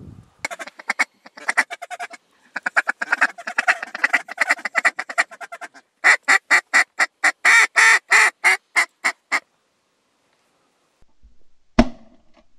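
Mallard duck call blown by a hunter: quick quacking chatter, then a louder hail call of about a dozen evenly spaced quacks, about three a second, that stops about nine seconds in. A single sharp knock comes near the end.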